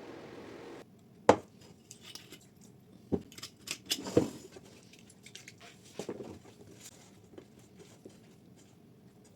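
A steady hum that cuts off abruptly just under a second in, then a scattered series of light knocks and clicks of kitchen utensils and dishes being handled, the sharpest about a second later.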